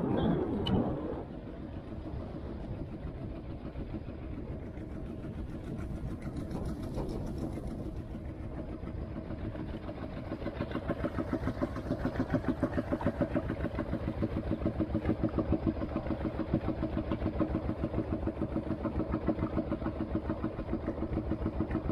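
A small boat's Tianli 1115 single-cylinder diesel engine chugging steadily while underway, with an even pulsing beat that grows louder about halfway through.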